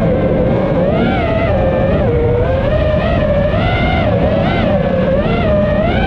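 Brushless motors and propellers of an iFlight Nazgul5 5-inch FPV quadcopter whining in flight, the pitch rising and falling repeatedly as the throttle is worked. A steady low rumble of strong wind runs beneath it.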